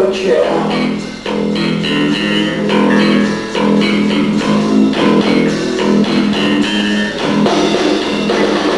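Live rock band playing an instrumental passage between sung lines: guitars holding sustained notes over bass and drums.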